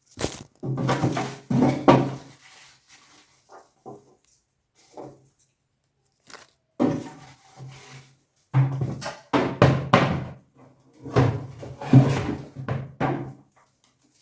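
A person singing to themselves in short phrases with held notes.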